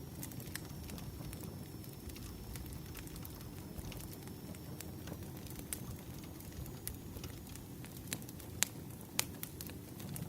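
Wood fire crackling: a steady low rumble with scattered sharp pops, two louder pops near the end.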